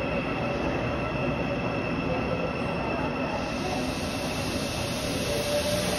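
Shinbundang Line subway train running out of the station on its way to the depot: a steady running noise with a high, even whine over it.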